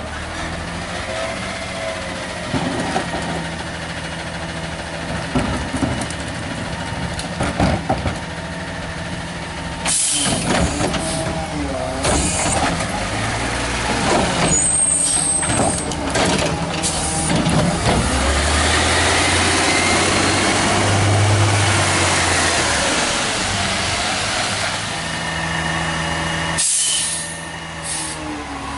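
Compressed-natural-gas engine of an AutoCar ACX front-loader garbage truck running while its Curotto-Can arm grabs, lifts and tips a recycling cart, with whining hydraulics and knocks and clanks of the cart. The engine speeds up in the middle, and air brakes give loud hisses about ten seconds in and again near the end.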